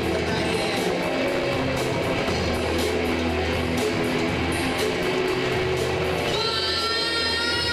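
Live band music led by electric guitar over steady low bass notes; a high held note comes in near the end.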